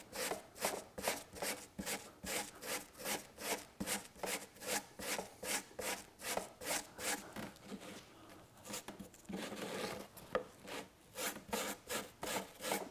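Small hand brush scrubbing a carpet piece back and forth, about two to three strokes a second, with a short let-up around eight seconds in before the scrubbing resumes.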